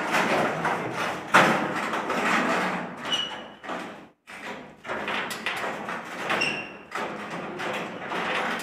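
Thumps and scraping of a rolled steel rolling-shutter curtain being handled and pushed into its mounting at the top of the doorframe, with one sharp knock about a second and a half in.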